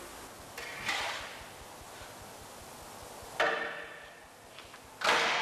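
Metal clanks from sheet steel and the clamp bar of a Magnabend electromagnetic sheet-metal folder as a workpiece is positioned and clamped. There are three sudden knocks, one just under a second in, one about three and a half seconds in and the loudest near the end, each dying away with a short metallic ring.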